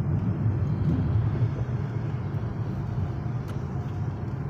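Inside the cabin of a Hyundai Grand i10 Nios moving at about 47 km/h: a steady low rumble of engine and road noise. The petrol engine is freshly rebuilt, with new spark plugs, and is being driven gently at low speed to run it in.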